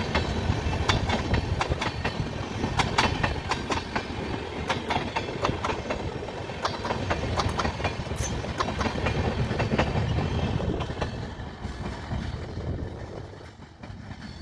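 Vaishno Devi–Kota Express passenger train passing, its coach wheels clattering over the rail joints in an irregular clickety-clack over a steady rumble. The sound fades over the last few seconds as the train moves away.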